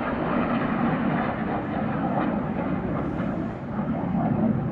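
Fighter jet flying past, its engine noise a steady, loud rushing sound. The filmer thinks the jets are F-15 Eagles.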